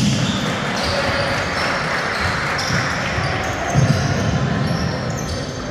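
Basketball game sound in a gym: a ball bouncing on the court amid steady crowd chatter, with scattered low thumps.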